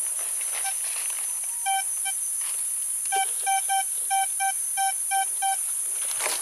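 Vista Gold metal detector giving about ten short, identical mid-pitched beeps as its search coil sweeps back and forth over the ground: a pair near two seconds in, then a quicker run from about three seconds in. The beeps are the detector's target signal for buried metal.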